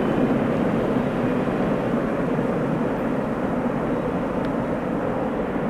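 Freight train rolling past below: a steady rumble of wheels on rail that eases off very slightly.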